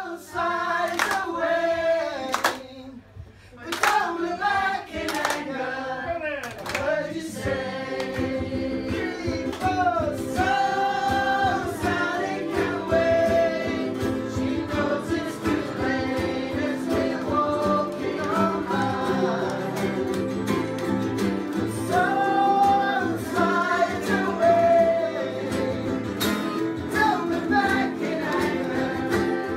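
A group of amateur players singing together while strumming ukuleles, with a guitar in the mix; the music briefly drops out about three seconds in, then carries on.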